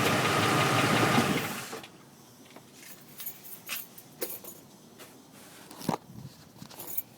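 Ford engine running with a rhythmic knock from a bent flexplate, then shut off about a second and a half in. A few faint clicks and taps follow.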